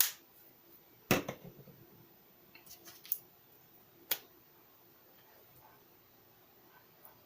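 A few sharp plastic clicks and knocks from alcohol ink markers being handled, the loudest about a second in and others around three and four seconds, with faint small ticks between.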